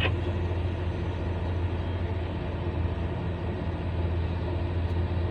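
Hyundai 1250-9 excavator's diesel engine running at a steady speed, a low, even drone.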